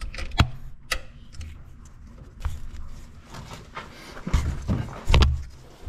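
Handling noise of power-steering and hydroboost line fittings being worked into place by hand: a few sharp metallic clicks in the first second, then scattered rattles and two louder dull knocks near the end.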